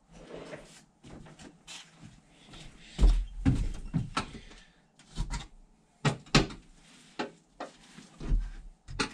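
Irregular knocks and clunks of a truck cab's floor panel being worked loose and lifted out, with a heavy thump about three seconds in.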